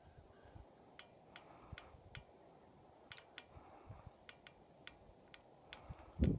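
About a dozen faint, sharp clicks at irregular intervals over a low rumble of wind on the microphone.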